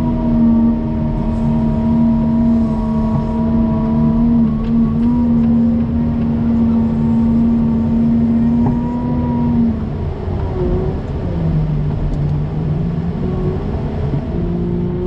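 Engine of a snow plowing vehicle running steadily under load, its note dropping to a lower pitch about ten seconds in.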